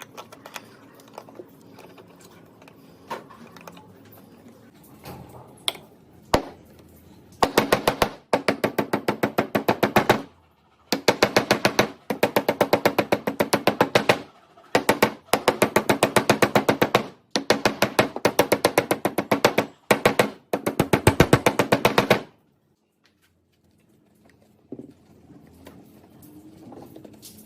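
Rapid, evenly spaced percussive tapping, about eight strikes a second, in bursts of one to two seconds with short pauses between, after a few scattered single knocks.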